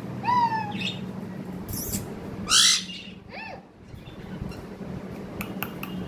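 Indian ringneck parakeet giving short calls that rise and fall in pitch, a couple about half a second in and another just after three seconds. Between them comes a louder, harsh noisy burst.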